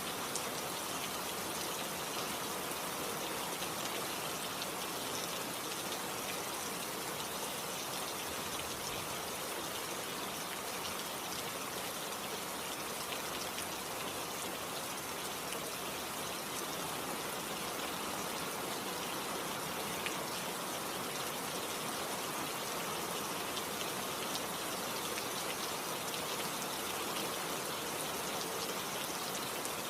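Steady rainfall, an even hiss of many raindrops with fine pattering.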